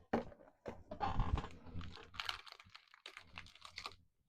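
Trading cards and their packaging being handled: a crinkling rustle with many small clicks.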